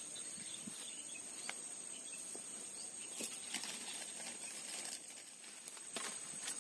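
Insects chirring steadily in a high-pitched drone, with a few faint clicks and taps scattered through.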